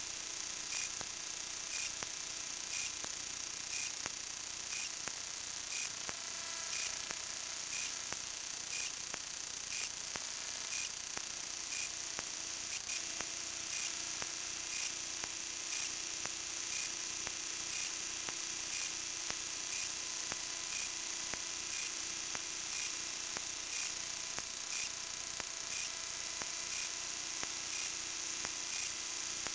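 Steady high hiss with a soft tick repeating about every two-thirds of a second and a faint hum: the self-noise of a small camera rig hanging from a kite line.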